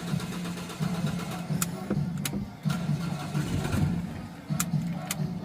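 Ford Everest engine idling with a steady, evenly pulsing note, with a few short sharp clicks over it.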